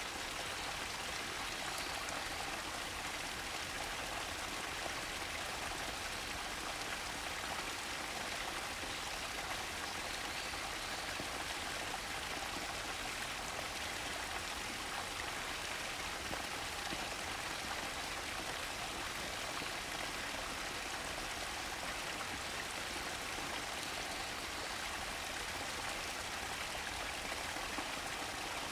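Steady rush of running water in a mountain stream, even and unbroken.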